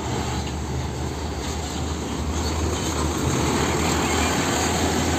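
Diesel engine of a container tractor-trailer truck running as it drives past close by, with tyre and road noise that grows louder about three seconds in.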